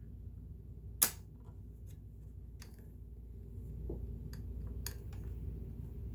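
A sharp metal click about a second in, then a few fainter clicks and taps: a sewing machine's needle plate being handled and set back in position over the feed dogs.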